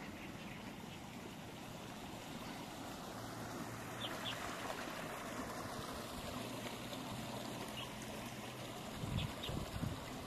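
Lakeside outdoor ambience: a steady hiss of wind and water, with a few short high chirps. A faint low hum runs through the middle, and low buffeting of wind on the microphone comes near the end.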